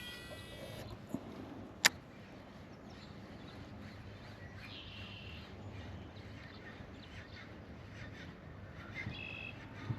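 A few short bird calls over quiet outdoor background noise, with one sharp click about two seconds in.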